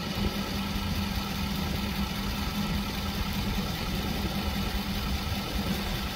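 A vehicle engine idling: a steady low drone with a constant hum held at one pitch, over an even background hiss.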